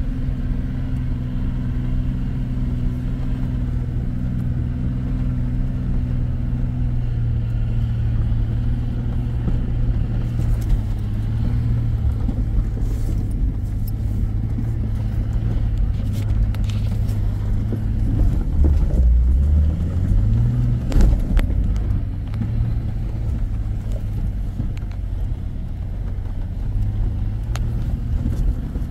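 Off-road vehicle engine running steadily on a rutted dirt trail. Its note dips about eighteen seconds in and climbs again a couple of seconds later, with scattered knocks and rattles from the bumps.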